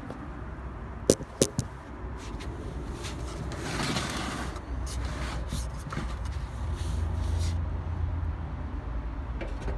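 Handling noise: two sharp knocks a little after one second in, then a scraping rustle around four seconds in, over a steady low rumble.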